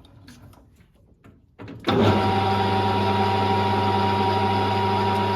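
Warco GH1330 geared-head lathe switched on about two seconds in: the motor and headstock gears start at once and run steadily with a constant hum and a higher gear whine. Before that, only faint clicks of handling the machine.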